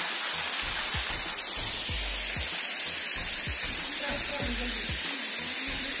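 Small forest waterfall running, a steady hiss of falling water, with faint tones in the background.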